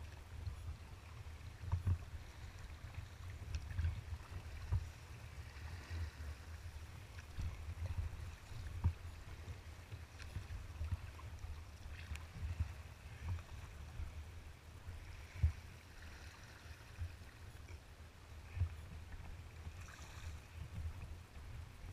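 Wind buffeting the microphone in gusts, a constant low rumble with sharp spikes, over choppy water splashing against a kayak's hull, with a few brief hissy splashes.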